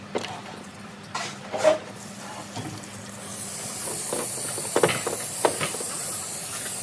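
Hand-held spray gun hissing steadily as it jets cleaning fluid onto a metal engine cover plate, starting about three seconds in. Sharp knocks of metal parts being handled on a steel workbench, the loudest about two seconds in.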